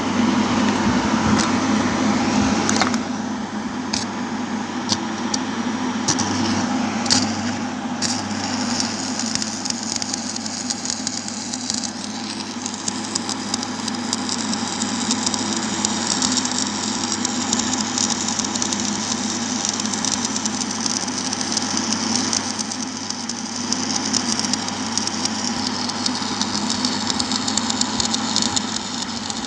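Stick (shielded metal arc) welding with a 3.2 mm electrode at 60 A, run flat (downhand) on 6 mm plate: the arc crackles and sizzles continuously over a steady electrical hum, with sharper crackles in the first several seconds.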